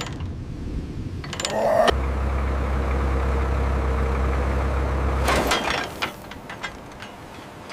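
A heavy vehicle's engine running steadily with a low, even drone for about three and a half seconds, then cutting off abruptly. A brief metallic clatter comes just before the engine sound starts.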